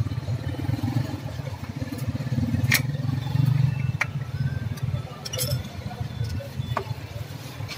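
A few sharp metallic clinks of a hand tool against a scooter's crankcase, spaced a second or so apart, over a steady low rumble.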